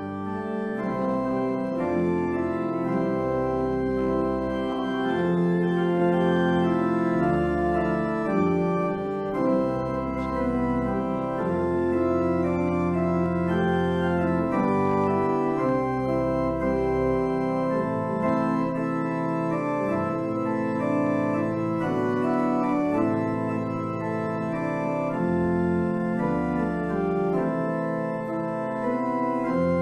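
Church pipe organ playing music of sustained chords over a deep pedal bass line that moves to a new note every second or two.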